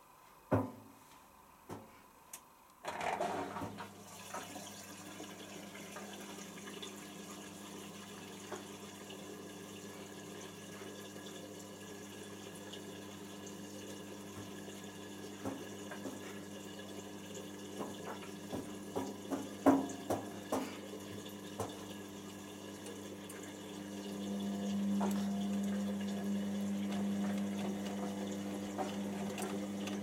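Hotpoint Aquarius WML540G washing machine: a few clicks, then about three seconds in water starts rushing into the machine with a steady hum, filling for the wash. Near the end the drum motor starts and the drum begins to turn, with a louder steady tone.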